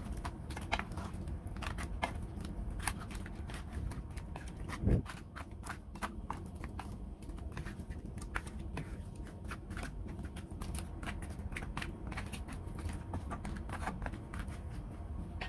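Wooden spatula stirring crab pieces in a thick curry sauce in a pan: irregular clicks and scrapes of shell and spatula against the pan, over a steady low rumble, with one louder thump about five seconds in.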